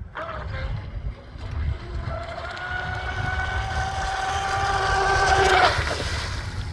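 Pro Boat Valvryn R/C boat's brushless electric motor whining at speed on the water. It grows steadily louder as the boat comes closer, peaks about five and a half seconds in, then drops away quickly as it passes. Wind rumbles on the microphone throughout.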